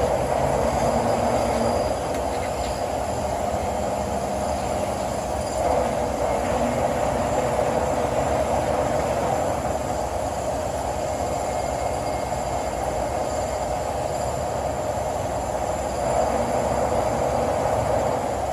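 1955 King 52-inch vertical turret lathe running under power, its 40 hp main drive and table gearing giving a steady mechanical whir, a little louder near the start, about six seconds in, and again near the end.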